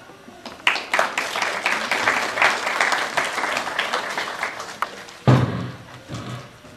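Audience clapping for about four seconds, a dense patter of many hands, then a sudden loud thump about five seconds in, followed by a softer one.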